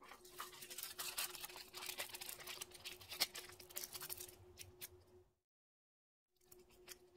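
Aluminium foil wraps on the fingertips crinkling and crackling as they are squeezed and pulled off after a gel-polish soak-off. The crackling stops abruptly about five seconds in, and fainter crinkles and clicks follow after a short silent gap, over a faint steady hum.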